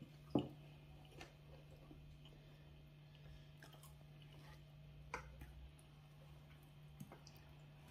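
Faint chewing and a few soft clicks and smacks as injera is torn and eaten by hand, over a steady low hum.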